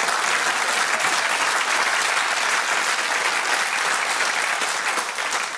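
Studio audience applauding, a dense steady clapping that eases slightly near the end.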